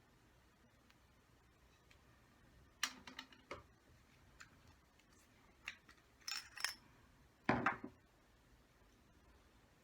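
Small metal engine parts and tools clicking and clinking on a work surface during hands-on disassembly of a model nitro engine. A cluster of clicks comes about three seconds in, a couple of bright ringing clinks a little after six seconds, and the loudest rattle near the end.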